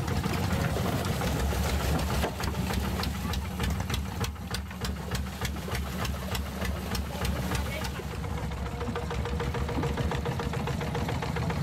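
Longtail boat's engine running with a steady low rumble and fast, even knocking.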